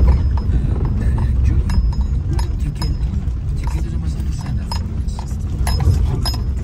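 Car driving on a rough dirt road, heard from inside the cabin: a steady low rumble of tyres and body, with frequent light clicks or rattles two or three times a second.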